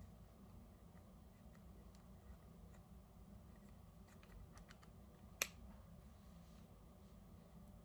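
Faint scattered clicks and taps of a small screw and laser-sight parts being handled on a pistol, with one sharp click about five and a half seconds in.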